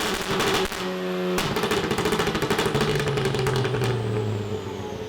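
Car engine revving, with a rapid string of sharp pops and crackles from the exhaust; the revs fall away toward the end.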